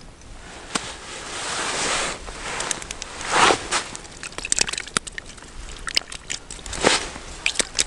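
Crunching and crackling of snow and ice slush at an ice-fishing hole, with two short louder scrapes about three and a half and seven seconds in and scattered small clicks between them.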